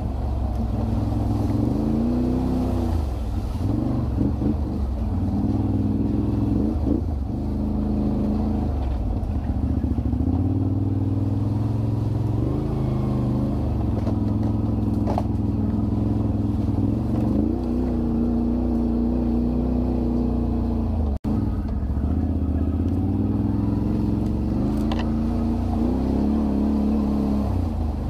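Quad bike (ATV) engine running close by, its pitch rising and falling again and again with the throttle. The sound cuts out for an instant about three-quarters of the way through.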